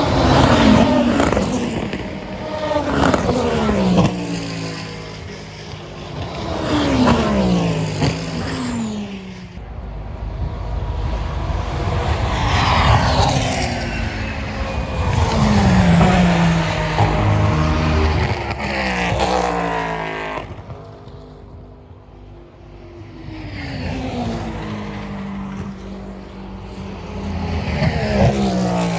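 Race cars passing by one after another, about eight in all, some close together. Each engine note falls in pitch as the car goes past.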